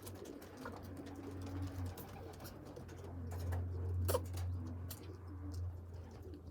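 Racing pigeons cooing, a low sound that swells about halfway through, with a few short sharp clicks, the strongest a little after the swell.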